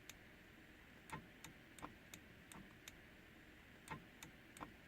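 Faint clicks at uneven intervals from a KLA replacement paddle shifter on a Lamborghini Gallardo's steering column being pulled again and again; the click shows the paddle is engaging properly.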